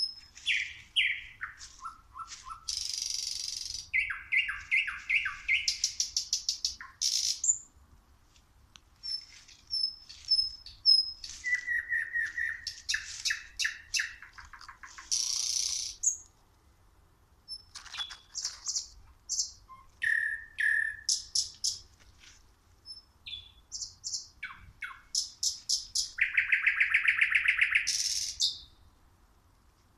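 Nightingale (Luscinia species) singing at night: a run of varied phrases of rapid repeated notes, pure whistles and harsh buzzy notes, with short pauses between phrases.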